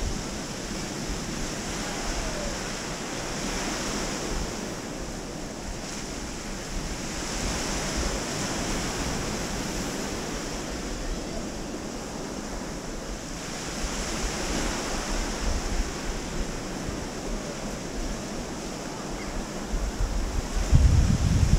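Small waves washing up a sandy beach, the surf swelling and falling back every few seconds. Near the end, wind gusts buffet the microphone.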